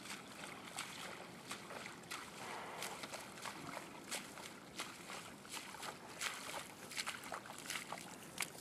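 Footsteps wading through shallow muddy water: an irregular run of splashes and sloshes, growing busier in the second half.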